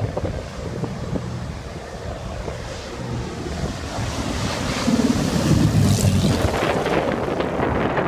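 Small twin-engine propeller plane on landing approach, passing low overhead: the engine and propeller drone builds to its loudest from about five seconds in. Wind buffets the microphone and surf washes underneath.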